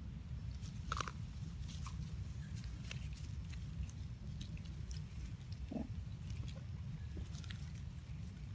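Macaques biting and chewing small fruits: scattered short crunching clicks over a steady low rumble.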